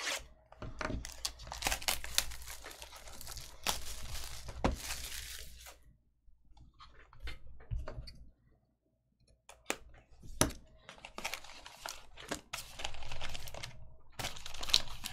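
Plastic shrink wrap torn off a sealed trading-card box and crinkled, in a run of rustling tears over the first six seconds. After a brief quiet pause come a few sharp clicks and more crinkling as the cardboard box is opened and its foil-wrapped pack handled.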